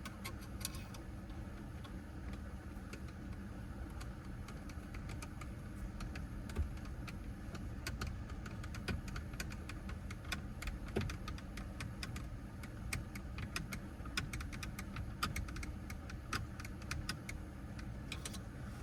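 Irregular small clicks and ticks of a Phillips screwdriver and screw being worked into a car's lower dash panel, becoming more frequent about halfway through, over a steady low hum.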